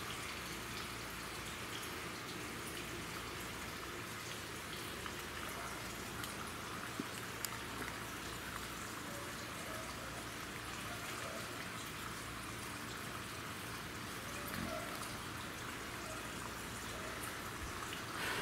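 Steady hiss of background noise, with a few faint clicks about seven seconds in.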